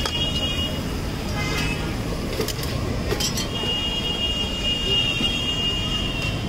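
Street traffic noise: a steady rumble of passing vehicles with faint background voices. A high, steady tone sounds for about three seconds in the second half.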